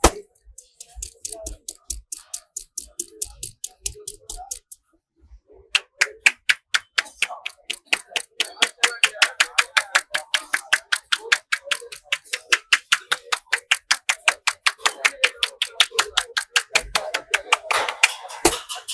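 A barber's hands tapping a customer's head in fast, even strikes during a head massage, about five a second. The strikes pause for about a second near five seconds in, then go on.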